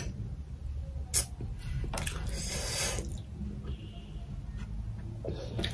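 A person chewing a mouthful quietly with closed lips, with a couple of sharp mouth clicks and a hiss about two seconds in that lasts a second, over a low steady hum.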